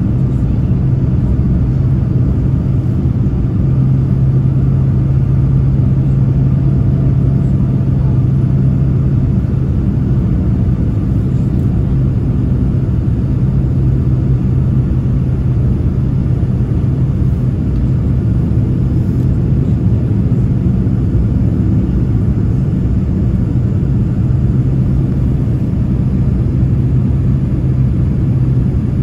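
Boeing 787-9 jet engines heard from inside the passenger cabin during the climb after takeoff: a steady, loud rumble with a constant low drone.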